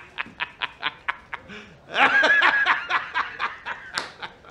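A man laughing heartily in rapid, regular 'ha-ha-ha' pulses, with a louder, fuller burst of laughter about two seconds in.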